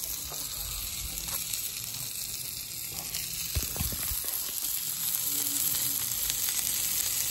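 New York strip steak sizzling as it sears on a hot perforated grill grate, a steady hiss of fat and juices that grows slowly louder. A couple of soft knocks come about halfway through.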